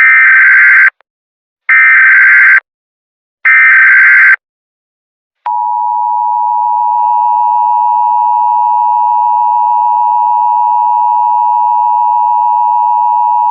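Emergency Alert System SAME header: three short bursts of warbling data tones, each about a second long with a second's gap between. About five and a half seconds in, the long, steady EAS two-tone attention signal begins.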